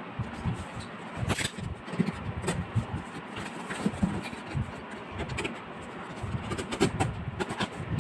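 Corrugated cardboard being handled and cut from a box: irregular scraping and rustling with scattered sharp knocks and taps.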